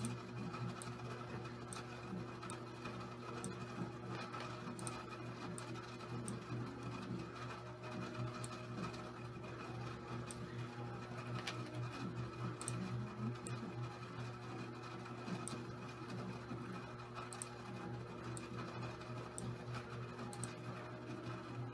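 Steady low electrical hum with faint, irregular clicks of a computer mouse.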